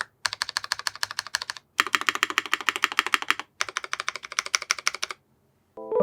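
Zoom75 mechanical keyboard with linear switches on a brass plate, typed on fast in three runs of about a second and a half each, with brief pauses between. A sustained piano chord begins at the very end.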